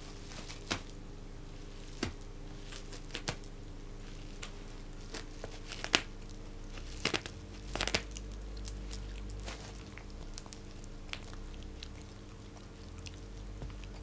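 A dog nosing and rummaging inside a yellow padded paper mailer, the envelope crinkling and crackling in scattered bursts, the sharpest about six and eight seconds in.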